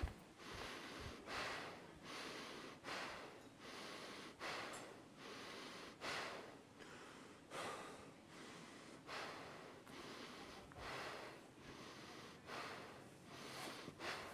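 A person breathing hard and fast after running, with a noisy breath about every 0.8 seconds.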